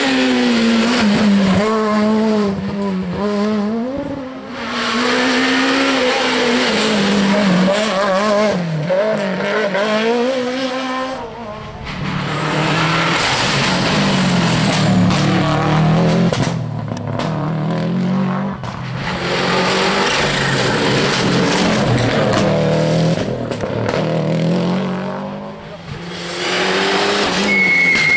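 Rally cars passing flat out one after another, about five in turn, among them a Renault Clio, a Subaru Impreza and a Mitsubishi Lancer Evolution. Each engine revs hard, its pitch climbing and dropping through gear changes as it brakes for the junction and accelerates away.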